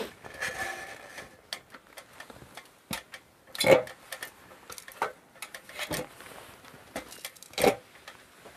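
Scattered light clicks and taps of hand work on the ladder, with two louder sharp knocks about four seconds apart.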